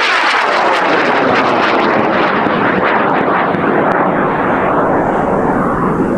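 High-power rocket motor burning during the boost: a loud, steady, crackling roar that holds without letting up.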